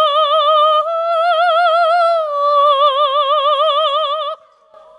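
A male singer's high, wordless sung vocalise, held on long notes with a wide, even vibrato and stepping slightly up about a second in, then down about two seconds in. The note cuts off sharply about four seconds in.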